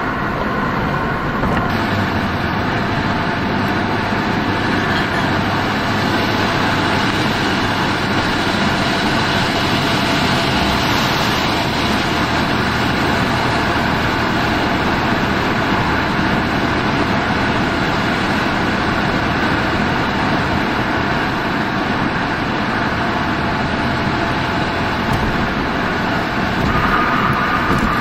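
Steady road noise of a car driving at highway speed: tyre and engine noise with no distinct bangs standing out. Near the end a faint high tone joins in, sliding slightly downward.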